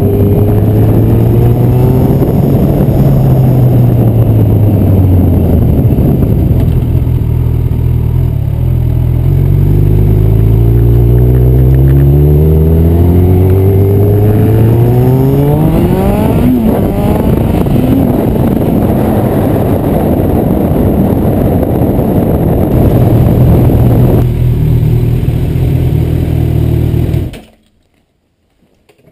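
Honda CB1000R's inline-four engine through an ixil Hyperlow aftermarket exhaust, under way: its pitch rises again and again as it pulls through the gears, drops back, and rises sharply once before falling off, over a steady rush of wind on the tank-mounted camera. The sound cuts off suddenly near the end.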